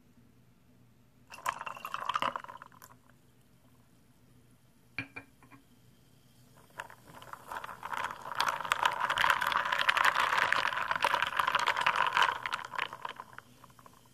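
Iced ginger beer fizzing and crackling in a glass jar, close to the microphone. A short burst comes early, a couple of small clicks follow, and then a longer stretch of dense fizzing crackle takes up most of the second half.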